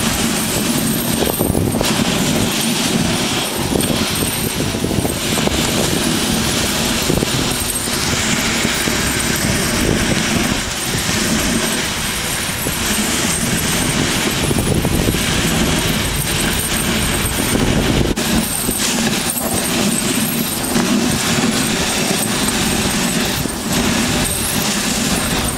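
Dog sled moving fast over rough glacier snow: a steady loud scraping and rattling of the runners and the unsprung sled frame jolting over the uneven surface.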